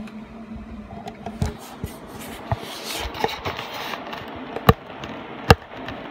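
Handling noise: a brief rustle around the middle and a few sharp, irregular clicks and knocks, the two loudest near the end.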